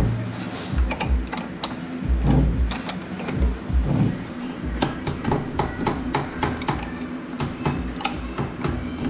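Fox shock preload adjuster on a Can-Am X3 being turned with a wrench to raise the ride height: a continuous run of irregular metallic clicks with some low knocks.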